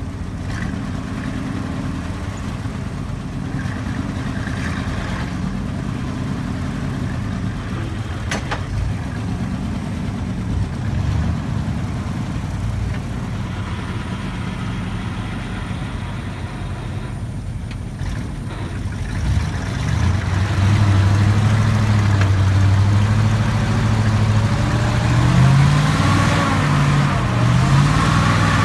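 ZIL-131 army truck's V8 petrol engine running while the truck is stuck deep in mud, the engine getting louder about two-thirds of the way in, with the revs rising and falling near the end as it works to pull free.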